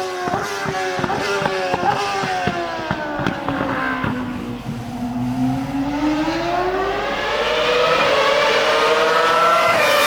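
Formula 1 car engine at high revs: its note slides down over the first few seconds, with a run of sharp crackles, then climbs steadily back up as it accelerates.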